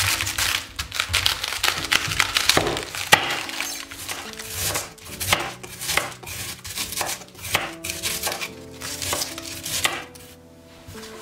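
Chef's knife shredding a head of white cabbage on a wooden cutting board. The cuts come thick and fast for the first few seconds, then settle into even slices about two a second, and stop near the end.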